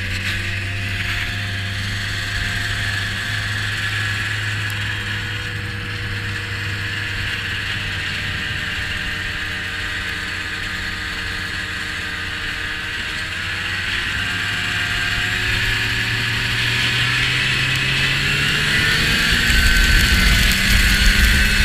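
A vehicle's engine running steadily, then rising in pitch and getting louder from about fourteen seconds in as it speeds up.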